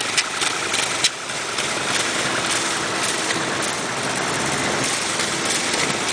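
Many motorcycle engines idling and running together in a steady mass of engine noise, with a few sharp clicks in the first second.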